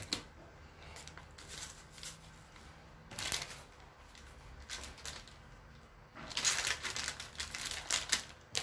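Rustling and crinkling of plastic packets and stretchy fabric as small items are pushed into the pockets of a running belt worn at the waist. Short rustles come about 3 and 5 seconds in, then near-continuous handling from about 6 seconds in.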